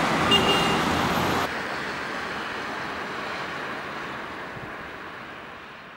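Road traffic noise, an even hiss of passing vehicles, which changes abruptly about a second and a half in and then fades out gradually.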